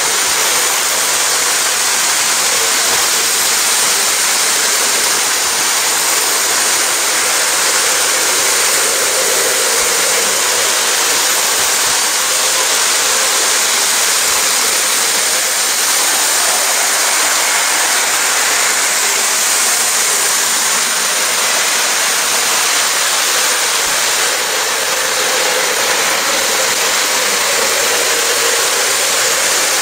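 Model trains running on the layout's track: a loud, steady noise of the wheels rolling and the motors running, with no distinct clicks or pauses.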